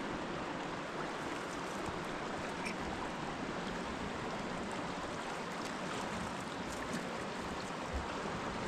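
River water rushing steadily, with a few faint clicks.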